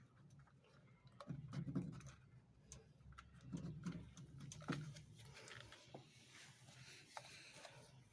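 Faint scattered clicks and soft knocks of plastic parts being handled, as the wire connectors are worked loose from a washing machine's drain pump.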